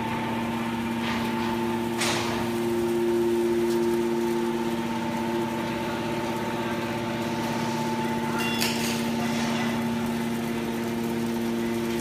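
Hydraulic power unit of an Enerpat 200-ton scrap metal baler running with a steady hum, with a short hissing swish about two seconds in and another near nine seconds.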